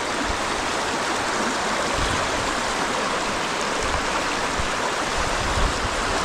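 River current rushing steadily over rocks, a constant hiss of moving water, with a few brief low rumbles underneath.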